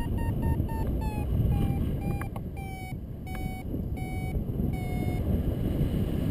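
A paragliding variometer beeping over wind buffeting the microphone. The beeps run almost continuously at first, then come as separate beeps that space out and drop slightly in pitch before stopping near the end: the climb in the thermal is weakening.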